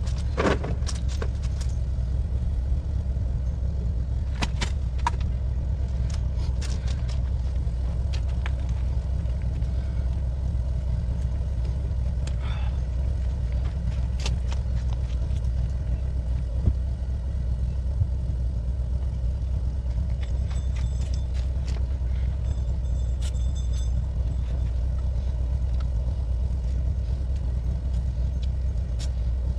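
A steady low rumble with scattered light clicks, knocks and rattles.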